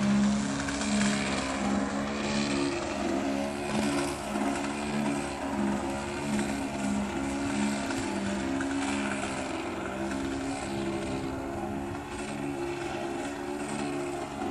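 Piped ZDZ 90 two-stroke gasoline engine of a 103-inch radio-controlled Extra 330, swinging a 28×9.5 propeller in flight, its pitch stepping up and down over and over as the throttle is worked through aerobatic manoeuvres.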